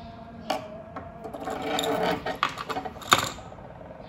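Handling noise of small hard objects: a click, a short clattering rattle of many small clicks, then one sharp click, the loudest, about three seconds in.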